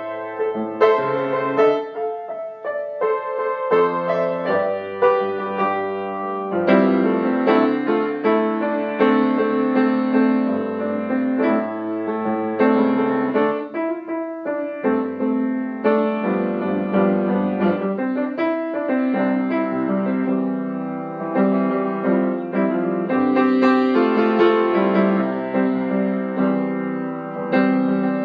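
Instrumental piano music, a steady flow of struck notes and chords.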